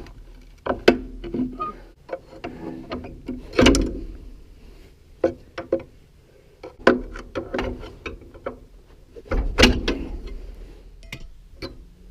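Irregular metal-on-metal knocks and clanks with short ringing, the loudest two about a third of the way in and near three quarters, as a seized bearing is worked off a feed wagon shaft.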